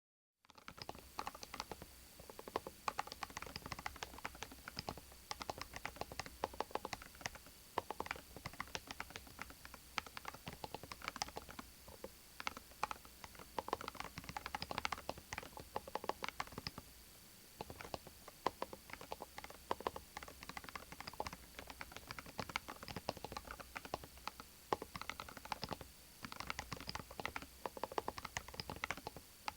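Continuous typing on a Cerakey Maris 60 HE, a 60% Hall-effect magnetic-switch mechanical keyboard: a fast, irregular stream of key clacks. It starts about half a second in and pauses briefly a little past halfway.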